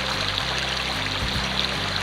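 Background music with a low bass line whose notes change about every half second to a second, over a steady hiss.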